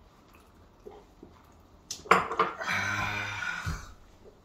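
Cups and dishes clattering on the table about two seconds in, then a man letting out a drawn-out, steady-pitched 'ahh' after gulping makgeolli.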